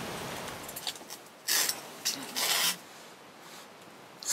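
Hot water pouring from a kettle into a cup of instant udon in the first second, then two loud slurps of udon noodles, about a second and a half and two and a half seconds in.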